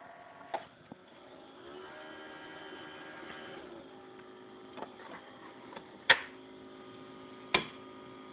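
Electric coffee maker humming steadily, with two sharp clicks near the end.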